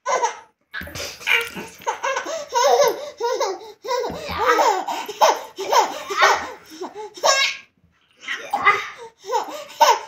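Six-month-old baby laughing in repeated short bursts of giggles, with brief pauses between them.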